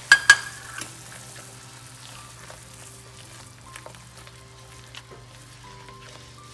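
Sugar syrup bubbling in a nonstick pan while spice powder is stirred in with a silicone spatula. It opens with two sharp knocks of the spatula against the pan, then soft bubbling and scraping.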